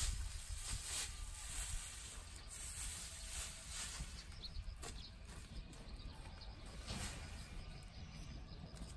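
Wind buffeting the microphone outdoors, a low rumble with irregular brief rushes of hiss and rustling.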